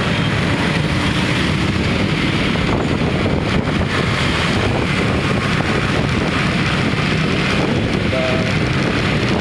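Steady rush of wind on the microphone mixed with road traffic noise.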